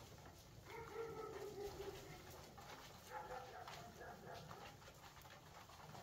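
Alföldi-Körösi tumbler pigeons cooing faintly, a coo starting about a second in and another about three seconds in.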